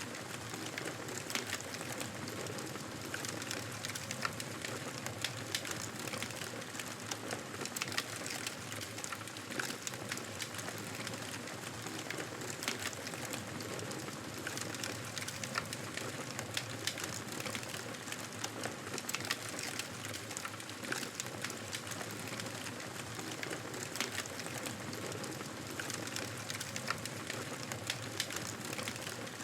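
Wood fire crackling in a fireplace: a steady soft hiss with frequent small, irregular pops and snaps.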